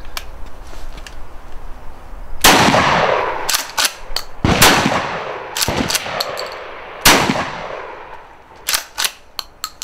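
Shotgun fired three times, about two seconds apart, unmuffled, each shot followed by a long echoing tail. Short clicks of the action being worked come about a second after each of the first two shots, and a few more clicks near the end.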